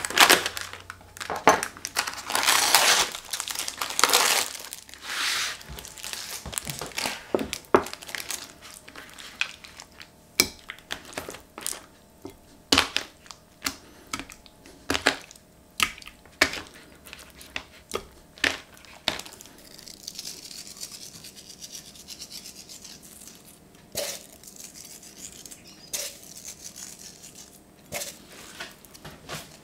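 Plastic film crinkling and tearing as it is peeled off a supermarket tray of raw chicken thigh fillets. This is followed by a long run of light clicks and soft knocks from the plastic tray and the ceramic dish as the fillets are moved across by hand, with a brief high hiss about two-thirds of the way through.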